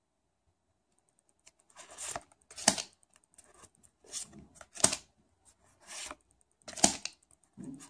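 Pokémon trading cards being flipped through by hand, each card slid from the front of the stack to the back with a sharp snap; about half a dozen snaps, starting about a second and a half in.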